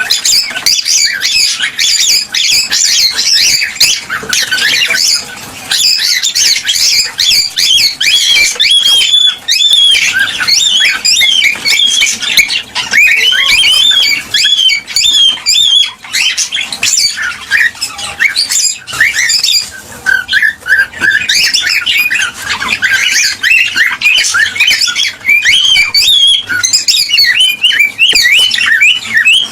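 Cockatiels chirping and squawking without a break: many short whistled calls, quickly rising and falling in pitch and overlapping one another.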